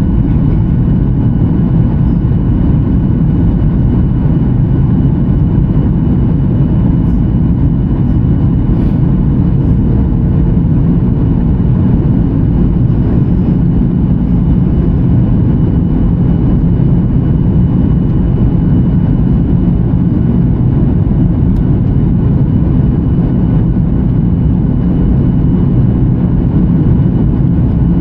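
Steady low rumble of a Boeing 737-900ER airliner, even in level throughout, with a faint thin high tone running through it.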